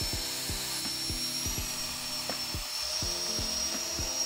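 Small electric mattress pump running with a steady high whine, sucking the air out of a self-inflating sleeping pad through its valve; its pitch creeps up slightly near the end. Background music with a steady beat plays underneath.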